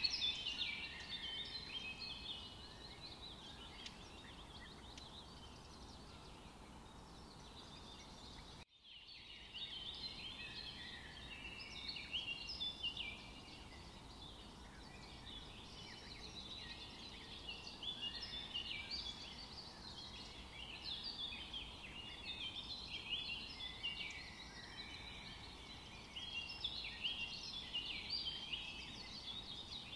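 A chorus of many small birds chirping, a dense patter of short high chirps that goes on without a pause, except for a brief dropout about nine seconds in.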